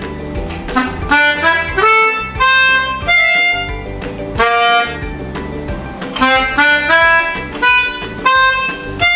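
A piano keyboard being played: a simple melody of single held notes, one after another.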